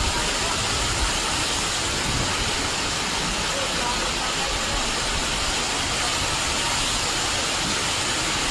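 Steady hiss of typhoon rain and rushing floodwater, an even wash of water noise with no breaks.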